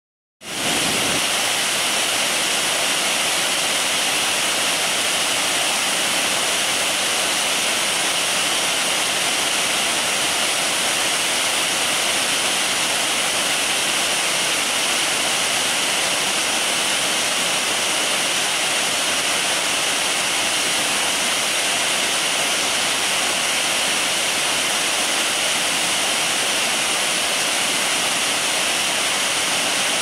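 Wide waterfall in heavy flow, its water falling over a rock ledge into a pool: a loud, steady, even rushing that comes in abruptly about half a second in.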